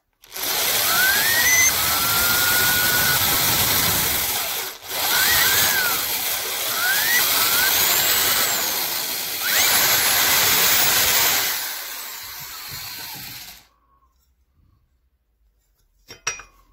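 Power drill with a twist bit boring through the pressed-steel body of a Tonka toy, the bit squealing now and then as it cuts. It pauses briefly about five seconds in and stops a few seconds before the end, followed by a single sharp click.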